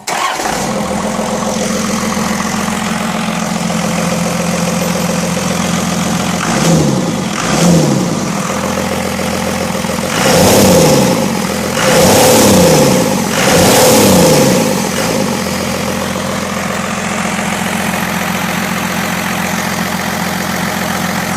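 First-generation Cummins 5.9-litre inline-six turbo diesel, freshly rebuilt, running at idle. It is revved twice briefly about seven seconds in, then three longer revs follow between about ten and fifteen seconds, each rising and falling in pitch before it settles back to a steady idle.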